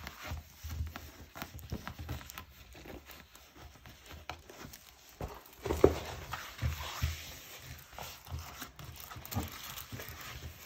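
A rolled diamond painting canvas under its plastic film being rolled back and handled on a table: irregular rustling and crinkling of the plastic with soft knocks, and one louder knock about six seconds in.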